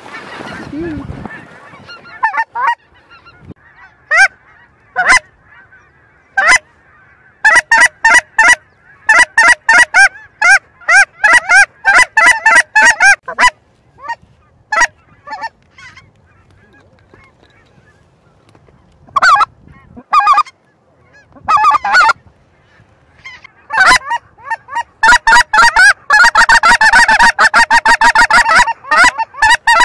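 Goose honking in quick loud runs of short honks: a long run in the first half, scattered single honks after it, then a dense, almost continuous run of honks near the end.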